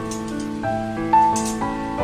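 Background music: a slow, gentle melody of held notes.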